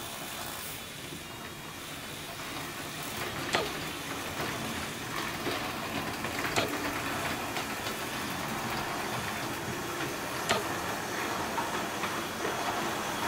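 Hornby model steam locomotives and coaches running past on the track: a steady running rumble that swells a little toward the middle, with three sharp clicks spaced a few seconds apart.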